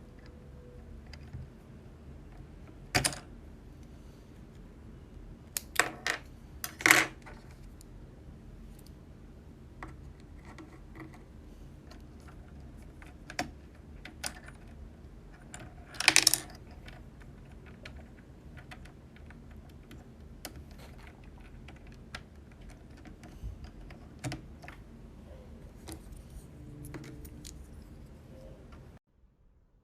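Scattered plastic clicks and clacks from handling a SHAVALIFE K87 mechanical keyboard and pressing its keys, with a few louder knocks rather than continuous typing. A steady low hum underneath cuts off near the end.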